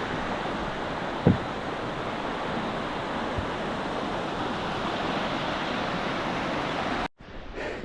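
Small waterfall rushing in a steady, even roar of water. There is a brief knock about a second in, and the sound cuts off abruptly near the end.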